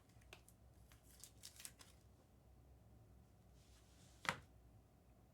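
Faint rustles and light ticks of trading cards being handled, with a single sharp click a little past four seconds in.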